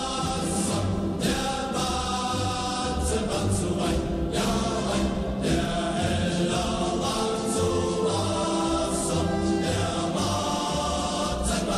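Background music: a choir singing long held chords over a low pulsing bass.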